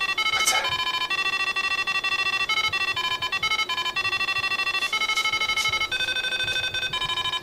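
Chiptune-style background music: a bleepy electronic melody of short, steady beeping notes changing pitch several times a second.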